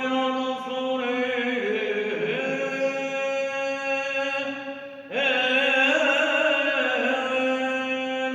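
A male voice sings a melismatic Byzantine chant over a steady held drone note. It is sung as two long phrases, the second starting about five seconds in.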